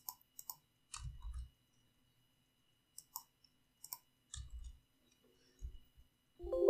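Scattered computer mouse clicks and keyboard key presses, light and irregular, with a few dull low thumps. Right at the end a computer alert chime starts ringing, the error sound of a wrong key press.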